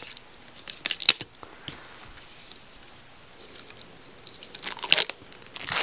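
Hands handling a boxed music album and its paper packaging: scattered rustles, taps and crinkles, busiest near the end.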